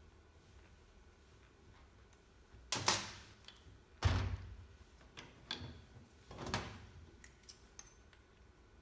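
Hand tools being handled and set down on a hard surface: about four separate knocks and clunks, each dying away quickly.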